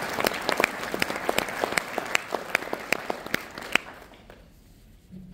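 Audience applauding, the claps growing sparser and stopping about four seconds in.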